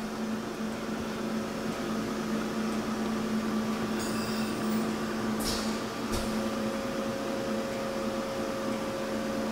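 Steady machine hum with a constant low tone, a fainter higher tone growing stronger about six seconds in, and two faint brief swishes about halfway.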